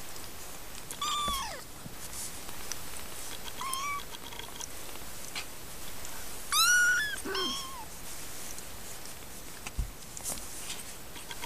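Three-week-old Siamese kittens mewing: about four short, high-pitched mews that rise and fall, the loudest about two-thirds of the way in. Faint clicks and rustles come from the kittens squirming on the blanket.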